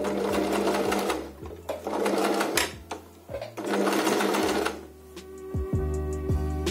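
Sewing machine stitching hair onto a wig in three short runs, each lasting about a second, with pauses between. Background music plays underneath and comes forward near the end.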